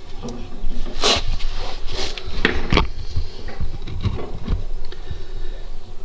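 Handling noise: several short scrapes and knocks, loudest about one to three seconds in, over a low rumble.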